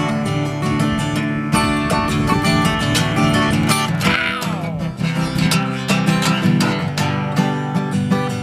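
Acoustic guitar strummed in a country-style instrumental break between verses of a song, with a falling sliding note about four seconds in.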